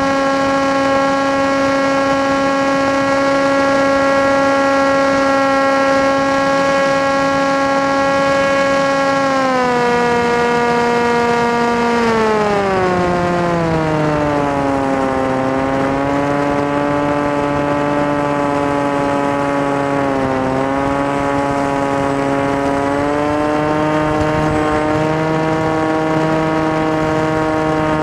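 Electric motor and propeller of an FPV model aircraft whining at a steady pitch, then throttled back about ten seconds in so the pitch falls smoothly over several seconds. It settles lower, then rises a little again later on.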